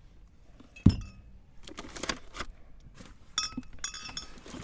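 Glass beer bottles clinking against each other as they are shifted aside, with one sharp knock about a second in and a run of ringing clinks near the end.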